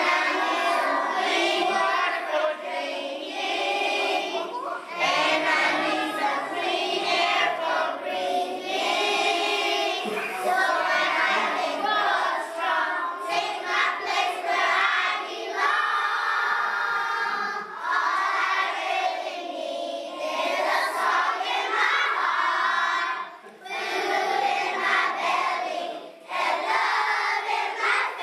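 A group of young children singing together in unison, with two short breaks near the end.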